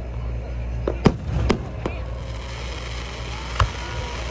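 Aerial fireworks bursting overhead: a run of sharp bangs about a second in, the first the loudest, then a crackling hiss from about two seconds in, and one more bang near the end.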